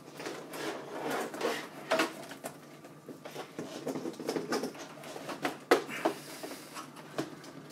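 PC power supply cables being pulled through the case's grommet holes: irregular rustling and scraping with scattered light clicks and knocks.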